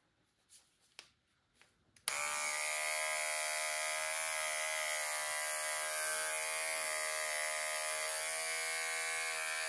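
A few faint clicks, then a cordless pet clipper switches on about two seconds in and runs with a steady buzz while trimming the hair around a dog's back paw pads.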